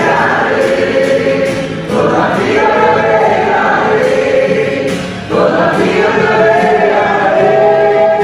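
Gospel music with a choir singing held phrases, new phrases entering about two seconds in and again past the middle.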